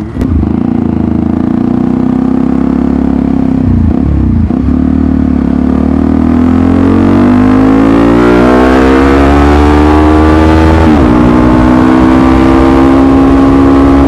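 Motorcycle engine running under way: it eases off briefly about four seconds in, then climbs steadily in pitch as the bike accelerates, drops sharply near eleven seconds on a gear change, and runs on at a steady pitch.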